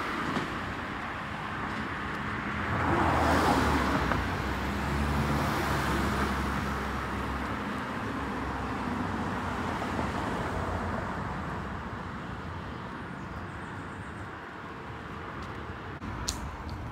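Road traffic: cars passing on a wide multi-lane road, with tyre and engine noise swelling as one goes by about three seconds in. It then eases off to a quieter, steady hum of more distant traffic. There are a couple of sharp clicks near the end.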